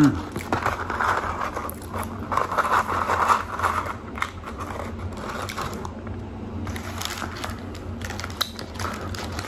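Paper french-fry carton crinkling as it is picked up and handled, loudest in the first few seconds. This is followed by softer scattered clicks of fries being taken and eaten.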